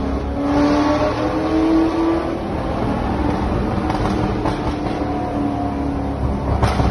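Sports-car engines accelerating through a road tunnel, heard from inside the cabin of a Corvette C6 Z06 following a Lamborghini Huracán. The engine note rises over the first two seconds, then holds steady, with a sharp crack near the end.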